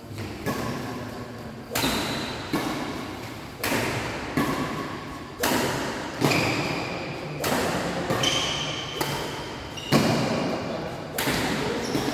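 Badminton rally: rackets striking the shuttlecock about once a second, each hit sharp and echoing in a large hall, with short high squeaks between some of the hits.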